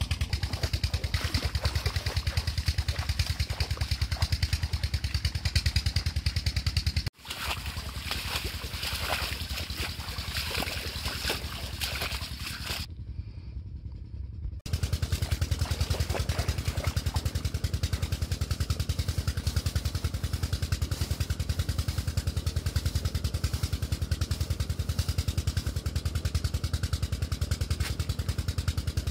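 Single-cylinder diesel tube-well pump engine running steadily with a fast, even chugging. About 7 seconds in the engine sound gives way to a hissier, noisier stretch, and the chugging returns abruptly about 15 seconds in.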